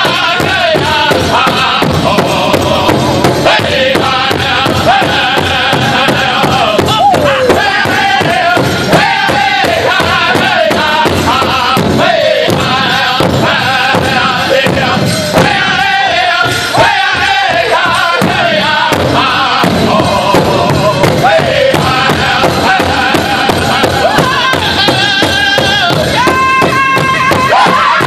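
Powwow drum group: several men singing a powwow song together while striking one large shared hand drum with drumsticks in a steady beat.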